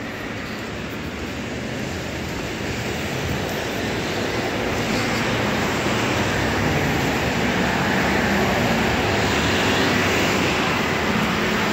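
City street traffic noise, a steady rushing hum that grows slowly louder.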